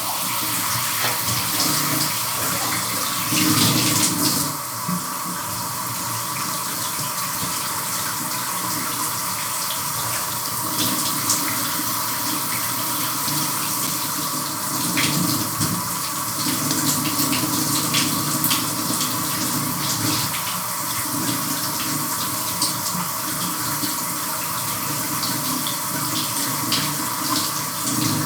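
Shower water running steadily, spray falling and splashing, with the flow changing now and then as the spray is broken up, and a brief louder splash about three to four seconds in.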